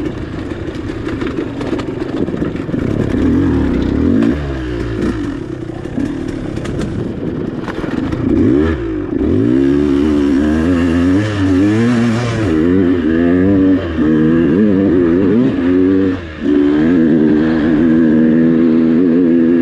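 KTM 200 two-stroke dirt bike engine under way on a trail, the throttle worked on and off over and over so the pitch keeps rising and falling. It runs steadier and lower for the first few seconds, and the throttle is briefly shut twice in the second half.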